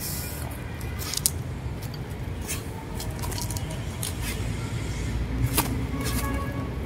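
Feet scuffing and crunching on dry leaf litter during a kung fu form, in short irregular crackles as he steps, pivots and drops into stances, over a steady low background rumble.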